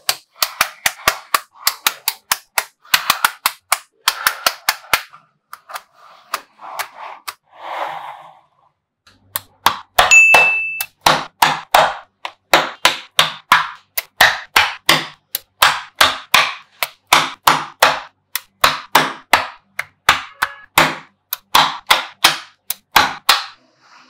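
Small magnetic balls snapping together as blocks of them are pressed into a sheet: a run of sharp clicks, about two a second and sometimes in quick pairs, with softer rattling as balls are slid and shuffled. A short ringing ding sounds about ten seconds in.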